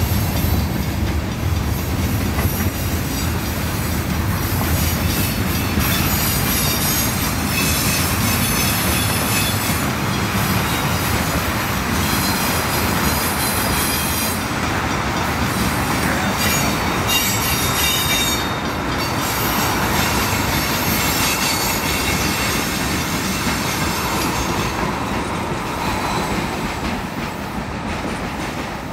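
Freight train cars rolling past with steady wheel-on-rail noise. High-pitched wheel squeal comes and goes through the middle stretch, and the noise eases off near the end as the last cars go by.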